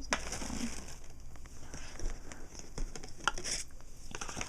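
Packaging crinkling and rustling as it is handled, with scattered light clicks.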